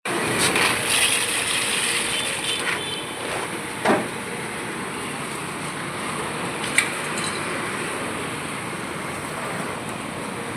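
Steady street-stall background noise, an even hiss with two sharp knocks, about four and seven seconds in.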